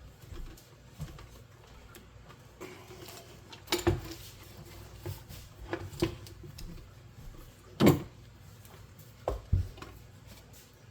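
Scattered sharp knocks and clinks of a wooden bowl and metal hand tools being handled on a work surface, about six in all, the loudest about eight seconds in.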